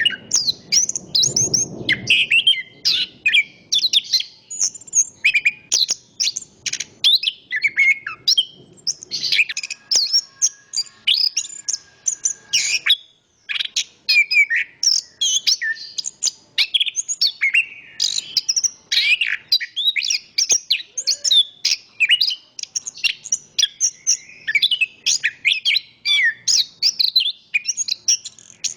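Chestnut-capped thrush (anis kembang) singing a continuous run of rapid, varied high whistled phrases, with a low rush of wind in the first couple of seconds.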